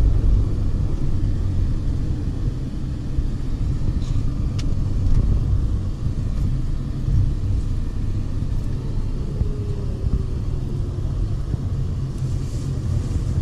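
Steady low rumble of a bus driving along the road.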